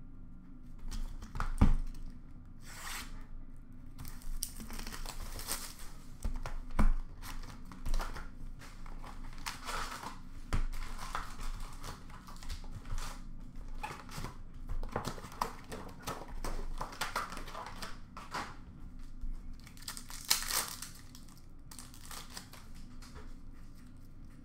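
Foil hockey card pack wrappers being torn open and crinkled, in irregular bursts of rustling. A few sharp knocks stand out.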